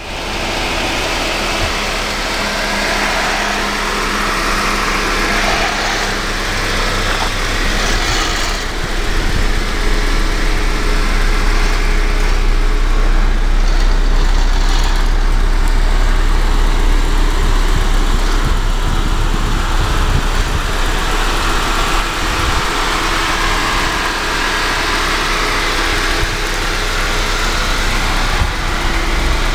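Car engine idling steadily under a continuous low rumble.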